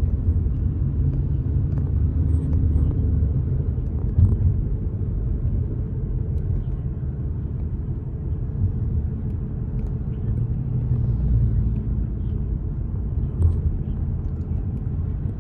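Steady low rumble of a car driving, heard from inside the cabin: engine and tyre road noise with a few faint ticks.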